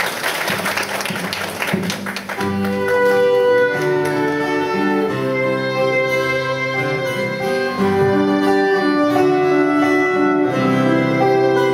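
Applause dies away in the first two seconds, then a band starts an instrumental intro: a violin carries the melody in long held notes over acoustic guitars and electric bass.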